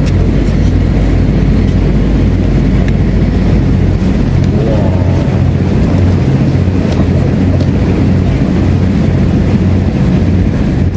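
Fishing boat's engine idling, a loud steady low drone.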